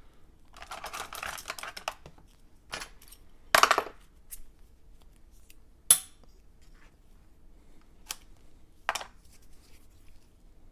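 Small handling noises from hands and tools working inside an opened laptop while double-sided tape is fitted: a rustle of about a second, then a short scraping burst and a few sharp clicks and taps spread over the following seconds.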